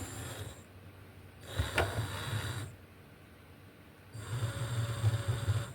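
Small electric motors of a kit remote-control car whirring in three short bursts of about a second each, as buttons on the remote switch the wheels on and off. A sharp click comes during the second burst.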